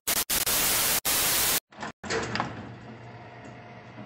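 Hissing TV static sound effect, broken by a few short dropouts and cutting off about a second and a half in. About two seconds in, a sudden clank of a jail cell door closing rings away into a faint low hum.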